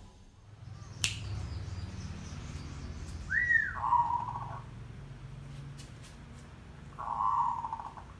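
Caged zebra dove (merbok) cooing twice: a high rising-then-falling note that runs into a rolling, trilled coo about three seconds in, and a second rolling coo near the end. A sharp click about a second in.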